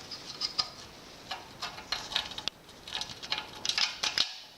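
Irregular light metallic clicks and taps of hand tools working on metal motorcycle parts, several a second and more frequent near the end.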